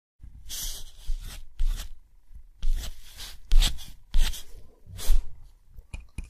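Scratchy strokes on paper, about ten short swipes roughly every half second, with a few short clicks near the end.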